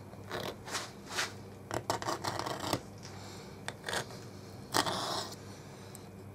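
Hand deburring tool scraping along the freshly milled edges of a metal cylinder block, breaking the sharp burred edges, in a run of short, uneven strokes with the loudest nearly five seconds in.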